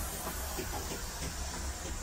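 Puffing Billy's coal-fired steam train running: a steady low rumble under a hiss, with faint irregular knocks.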